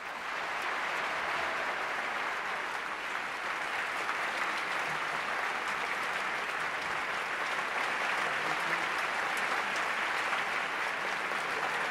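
Audience applauding: dense, steady clapping that swells up in the first moment and then holds.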